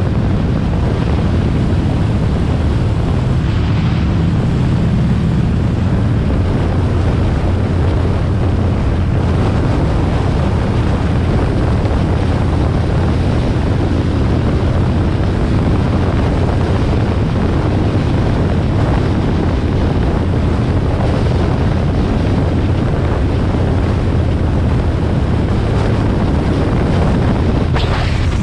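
Harley-Davidson XL1200R Sportster's air-cooled 1200 cc V-twin running steadily at cruising speed, with heavy wind noise on the microphone.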